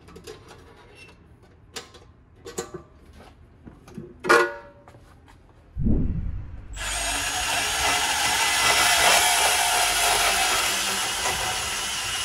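Milwaukee M18 FUEL cordless compact band saw starting about six seconds in and cutting steadily through metal conduit. Before it, scattered knocks and clicks of hand work, with one sharper clank about four seconds in.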